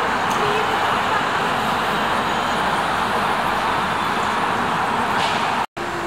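Steady road traffic noise on a busy city avenue: cars and a trolleybus moving past. The sound drops out for a split second near the end.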